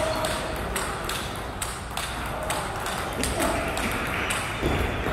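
Table tennis balls clicking sharply and irregularly, about two or three clicks a second, as in rallies on nearby tables, with faint voices in an echoing hall.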